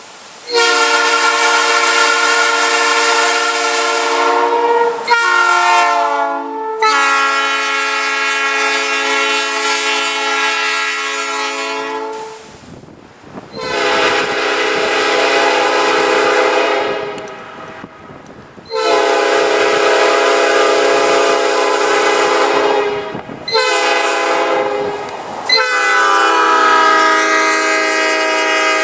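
Multi-chime locomotive air horn (a Nathan Airchime or Leslie train horn) sounding a loud steady chord, in a series of long and short blasts with brief gaps between them. The chord changes near the end, a different horn set taking over.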